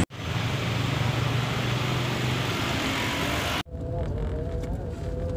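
Road traffic noise, a steady hiss with a low rumble, which cuts off abruptly about three and a half seconds in. It gives way to a quieter sound of a vehicle running along a road, with a faint wavering tone.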